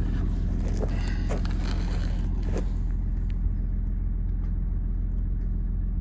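A tractor engine running steadily, a low even drone. In the first half, a few brief scuffs and rustles of someone walking on cut grass.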